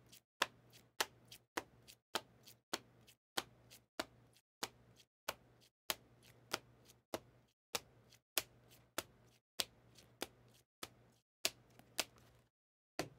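Plastic magnetic card holders clicking against one another as they are cycled through a stack one at a time, a sharp faint click roughly every half second or so, stopping about a second before the end with one last click.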